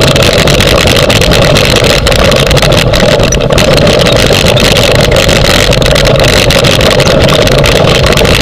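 Husky-drawn dryland rig running fast over rough grass: a loud steady rush of rolling wheels and wind, with constant rattling and knocking from the frame.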